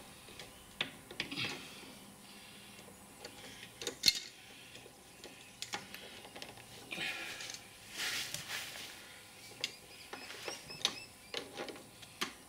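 Faint, scattered metal clicks and light knocks from pliers and hands gripping and turning a ride-on mower's steering tie rod to adjust it, with one sharp click about four seconds in and a short rustle around the eight-second mark.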